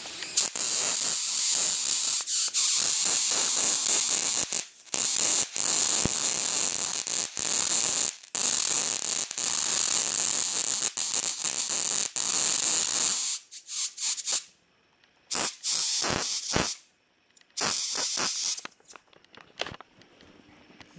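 High-voltage plasma arc from an Optima KM-12 CRT monitor's flyback transformer (LOPT), burning at the picture tube's anode cap: a steady, high sizzling hiss with brief breaks. After about 13 seconds it sputters in short bursts, then stops.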